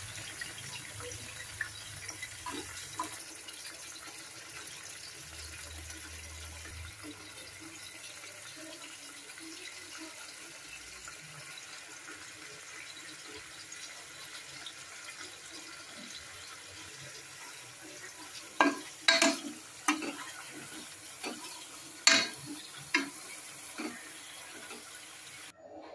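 Steel spoon clanking against an aluminium pressure cooker while stirring chicken pieces with spices, about seven sharp knocks in the last third, over a steady hiss.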